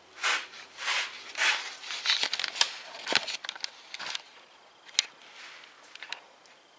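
Close handling noise: a few short rustling swishes in the first second and a half, then scattered sharp clicks and taps.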